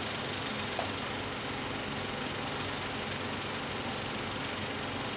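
Ventilation fan running: a steady drone with a low hum, and a light click about a second in.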